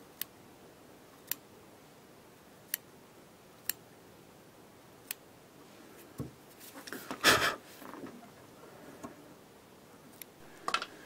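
Small curved fly-tying scissors snipping the spun hair head of a muddler fly to shape: five sharp, separate snips about a second apart, then a louder, longer rustle about seven seconds in.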